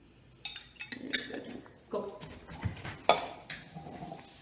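Small round metal tins clinking and scraping on a foam floor mat as a dog paws and noses through them in a scent-article search. There are several sharp clinks; the loudest comes about three seconds in.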